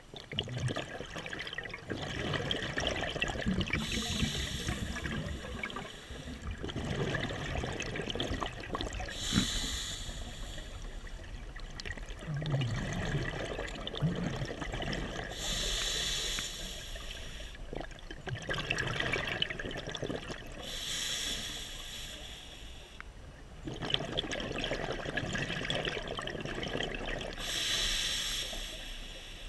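Scuba diver breathing underwater through a regulator: five short hisses of inhalation about every six seconds, each followed by a longer rush of exhaled bubbles.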